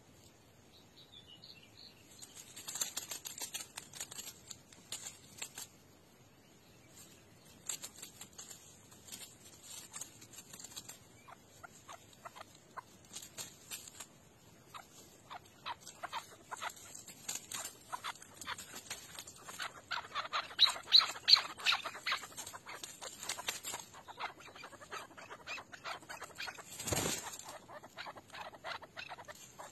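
Chukar partridges giving bursts of rapid, clucking calls, loudest about two-thirds of the way through. One thump near the end.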